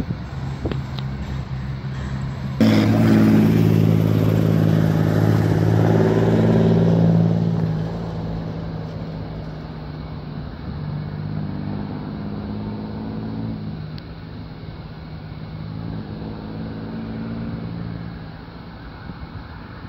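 Aircraft engines running at an airport, a steady low drone with several humming tones. It starts louder and fuller abruptly about two and a half seconds in and eases off after about eight seconds.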